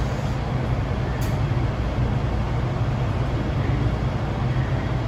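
MTR M-train electric multiple unit running along the line, heard from inside the car: a steady, loud rumble of wheels on rail and running gear, with no clear change in pitch.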